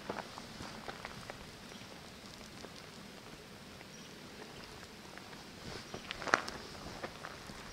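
Footsteps on a rocky gravel track: scattered small crunches and clicks of loose stones underfoot, with a louder cluster of crunches about six seconds in.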